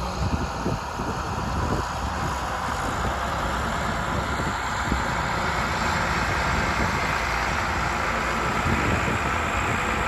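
Ford 8240's six-cylinder turbo diesel engine working steadily under load through its straight-pipe exhaust while pulling a four-furrow reversible plough, getting gradually louder as the tractor comes closer.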